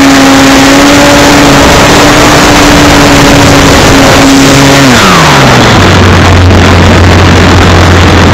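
RC model Cessna's motor and propeller, recorded from on board, running at a steady high pitch under loud wind rush. About five seconds in, the pitch drops quickly to a low steady drone as the throttle is pulled back.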